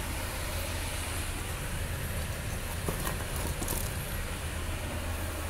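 Ford 3.5 EcoBoost twin-turbo V6 idling steadily, with a few faint clicks about three seconds in. The engine runs without its earlier misfire now that the VCT cam timing sprocket has been replaced.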